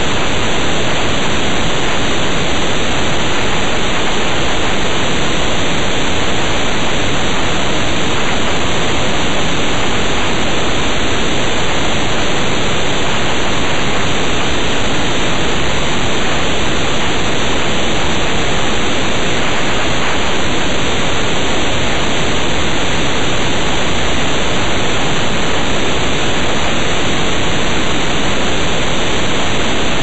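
Loud, steady hiss like static, even and unchanging throughout, with no bird calls standing out from it.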